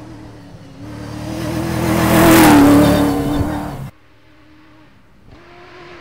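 Rally car at full throttle on a dirt track, its engine growing louder as it approaches and passes close by, loudest about two and a half seconds in, then cut off abruptly about four seconds in. A second rally car's engine comes in more faintly near the end.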